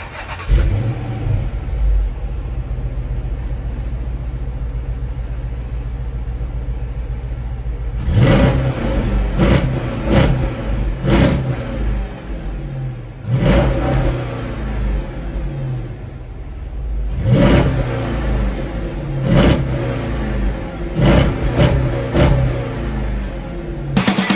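Dodge Charger SRT8's 6.1-litre Hemi V8 idling steadily, then revved hard in about ten quick throttle blips from about eight seconds in, the revs falling back to idle after each one.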